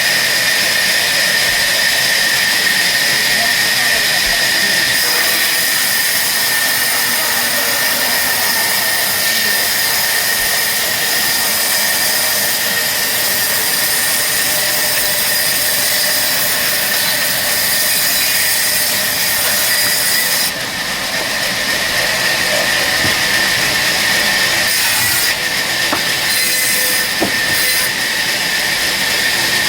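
A power woodworking tool running steadily with a loud, continuous high-pitched whine.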